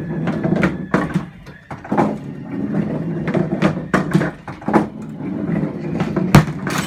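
1964 United Tornado ball bowler running its reset cycle after a strike: a steady motor rumble with repeated mechanical clicks and clunks, and a loud clack about six seconds in.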